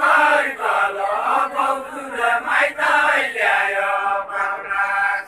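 A group of voices singing a deuda folk song together, unaccompanied, in long drawn-out chanted lines.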